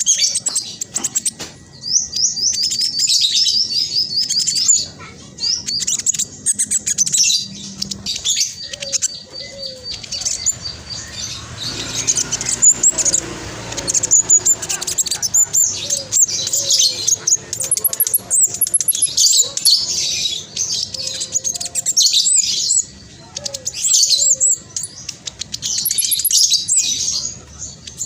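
Black sunbird singing a fast, tightly packed, high-pitched chattering song in repeated bursts with short pauses between them.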